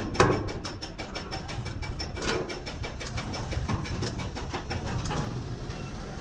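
Hammer tapping fast and evenly on a steel truck fuel tank, about six strikes a second, over a low engine hum; the tapping fades out about five seconds in.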